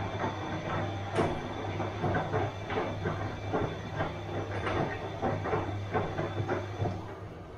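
Bosch washing machine running: a steady motor hum under repeated swishing and knocking as the drum turns, the whole sound dropping quieter about seven seconds in.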